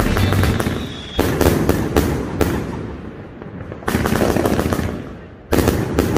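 Fireworks going off: three sudden bursts of crackling, each fading away before the next.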